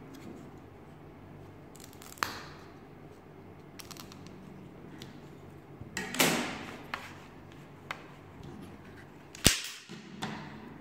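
Thin laser-cut plywood model parts clicking and knocking as they are handled: a few separate sharp clacks, one about six seconds in drawn out with rubbing, and the loudest near the end.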